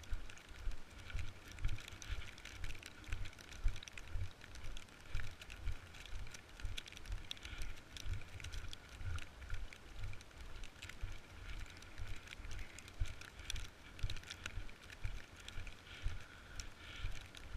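Snowboard sliding and scraping over snow, with repeated low thumps of wind buffeting the microphone and a steady hiss.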